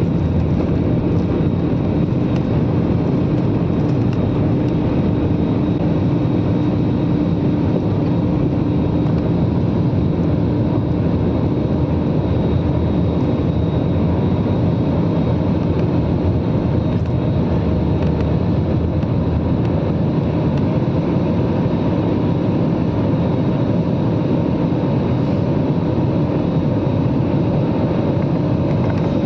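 Jet airliner engines running steadily at takeoff power, heard from inside the passenger cabin. A dense, even noise with a few steady hums through it.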